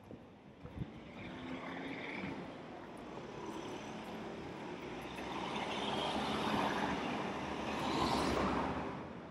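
Road traffic: a motor vehicle's engine and tyres pass by, growing louder toward a peak near the end before easing off.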